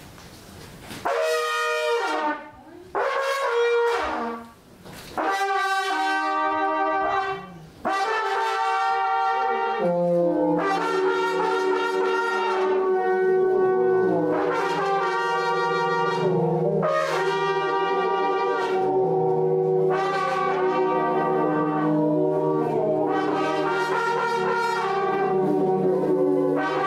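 Trumpet playing short phrases with pauses between them. From about eight seconds in the playing runs on without a break, with a low held note under the trumpet's line, like a second, lower brass instrument joining in.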